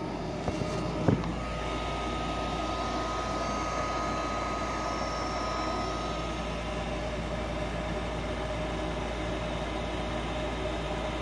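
Goodman furnace's induced-draft blower motor running steadily with a hum and rush of air. It has been forced on by hand-joining its wires, bypassing a faulty control board that would not start it. Two sharp clicks come about a second in.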